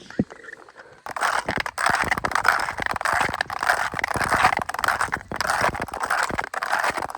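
Snow and ice crunching and scraping underfoot in a dense, irregular run of crackly strokes, starting abruptly about a second in after a single thump.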